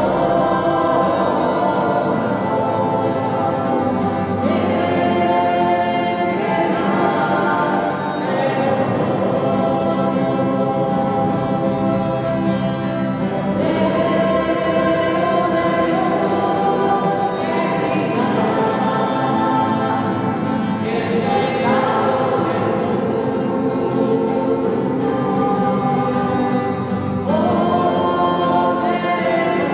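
Choir singing a slow sacred hymn with long held notes.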